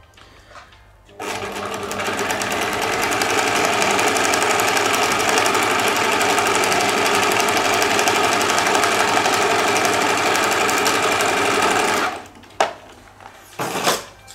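Electric sewing machine stitching a seam at speed, starting about a second in and running steadily before stopping near the end. A couple of brief knocks follow.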